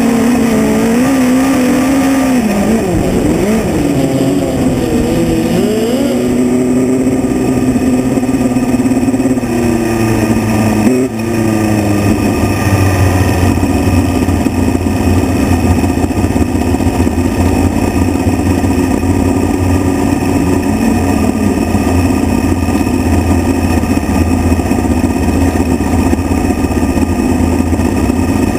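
Midget race car's engine heard from onboard at racing speed. Its pitch rises and falls with the throttle over the first several seconds, then holds fairly steady. About eleven seconds in there is a brief drop and a sharp knock.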